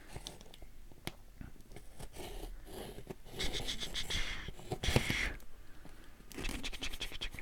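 A blade scraping and cutting through the tape and cardboard of a shipping box, in a few short strokes with small clicks and rustles between them.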